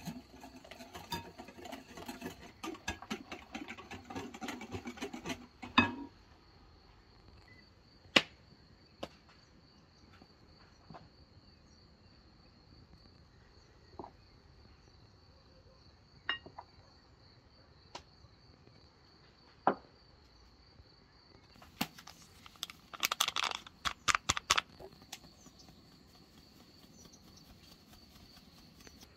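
Crickets trilling on one steady high note throughout. Over it come bursts of clinking and clattering cookware, in the first six seconds and again around 22 to 25 seconds, with a few single knocks between.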